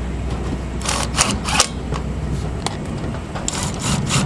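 A cordless drill drives self-tapping screws through metal mounting brackets into a solar collector frame. The motor runs with a low hum, broken by short bursts of sharp clicks and rattles, once about a second in and again near the end.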